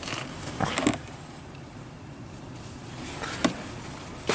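Wind rushing over the microphone, with a few short knocks and clicks in the first second and twice more near the end.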